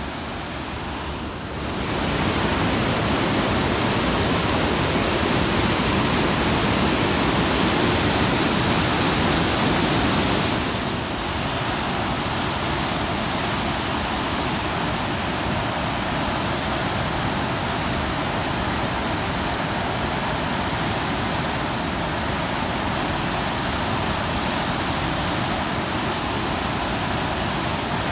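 Muddy floodwater rushing and churning through irrigation canal gates in a steady, loud rush. It grows louder about two seconds in and eases slightly about ten seconds in.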